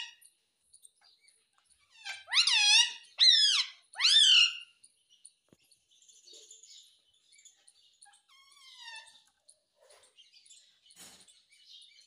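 Indian ringneck parakeet calling: three loud calls in quick succession about two seconds in, each dropping in pitch, then softer chattering.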